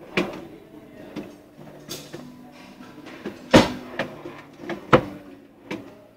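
A series of dull knocks and thuds at irregular intervals, about eight in all, the loudest about three and a half seconds in and another about five seconds in, over faint low tones.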